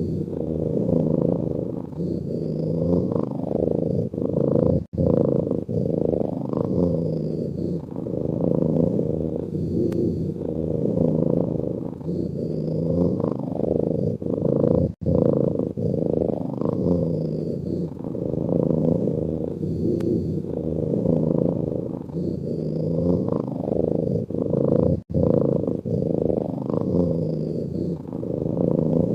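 Sleeping cat snoring with a purr-like low rumble that runs continuously and swells and eases in a slow rhythm. It cuts out briefly three times, about ten seconds apart.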